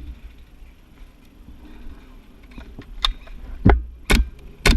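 Airsoft gun firing single shots: four sharp cracks in the last second and a half, about half a second apart, over a low rumble of wind and movement on the camera's microphone.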